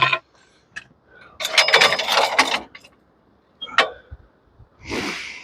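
Metal clicks and a rattling clatter from a portable bandsaw mill's log dog being set against the log: a sharp click at the start, a longer ringing clatter about a second and a half in, another click near four seconds, and a short scraping rush near the end.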